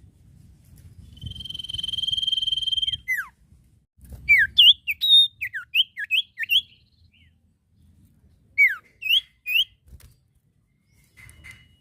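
Common iora (cipoh) singing: a long, steady, drawn-out whistle that ends in a quick falling slur, followed by a rapid run of short, sharply sweeping notes, with a second shorter run about two-thirds of the way through.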